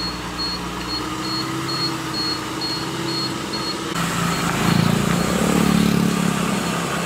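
A 1986 Nissan Hardbody pickup's engine running, revved up and back down about four seconds in. A faint high-pitched beep pulses about two to three times a second throughout.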